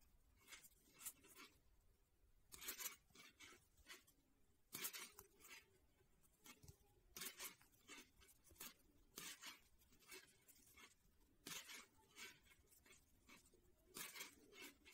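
Faint clicking and scraping of wooden knitting needles and yarn as knit stitches are worked, in short irregular strokes that come in little clusters every second or so.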